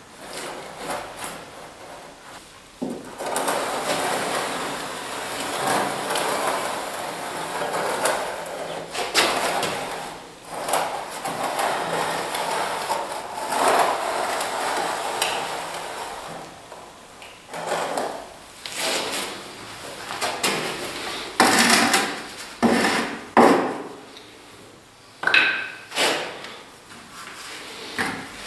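Hand trowel scraping and smoothing wet gypsum plaster on a window-reveal corner, in long rasping strokes, then shorter strokes with a few sharp knocks in the last few seconds.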